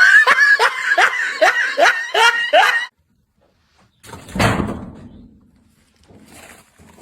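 A person laughing in a run of short, high-pitched bursts, about two to three a second, that breaks off suddenly about three seconds in. A little over a second later comes a single short thud.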